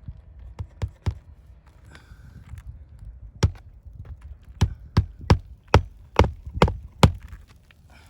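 Hammer strikes on an asphalt shingle roof. There are three sharp blows in the first second, then a run of seven quick blows, about two to three a second, starting about three and a half seconds in.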